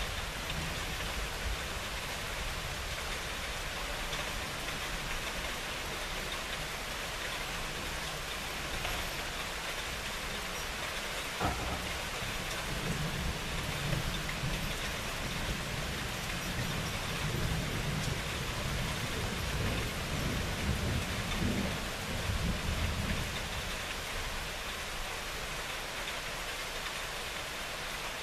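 Steady rain falling, with a sharp crack of thunder about a third of the way in, followed by about ten seconds of low, rolling thunder rumble.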